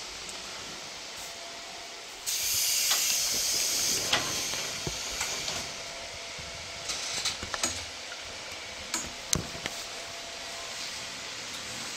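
A stopped electric commuter train's compressed-air system letting out a loud hiss for about three seconds, starting about two seconds in. A shorter hiss follows, then a few sharp clicks and knocks.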